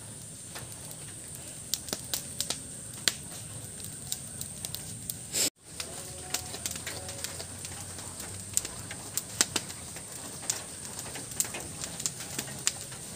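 Cattle-pen ambience: scattered sharp clicks and rustles over a steady high hiss, with a dove cooing faintly now and then. The sound drops out abruptly for an instant about five and a half seconds in.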